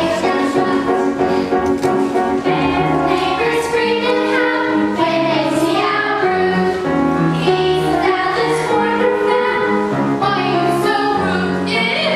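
A group of young voices singing a musical-theatre number in chorus over instrumental accompaniment.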